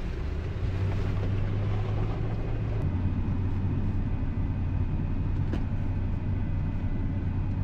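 Vehicle driving on a dirt and gravel road, heard from inside the cabin: a steady low engine hum under the rumble of tyres on the track.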